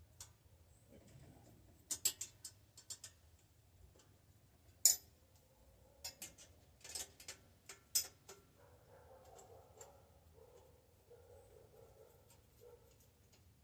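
Scattered clicks and light metallic knocks from hand tools and bicycle parts being handled during disassembly, with one sharper click about five seconds in.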